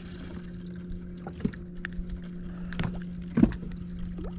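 A fishing boat's motor giving a steady low hum, with a few short knocks and splashes on top, the loudest about three and a half seconds in.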